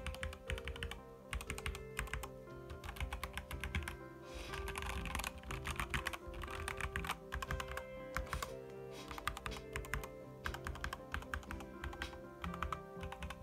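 Typing on a KBD67 Lite R4 custom keyboard fitted with Gateron Black Ink linear switches: rapid runs of keystrokes in bursts of a second or two, with short pauses between them. Background music plays under the typing.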